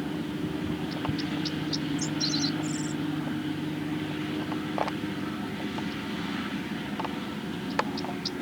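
Farm tractor engine running steadily while pulling a hay mower through the field, with a few high bird chirps about two seconds in and again near the end.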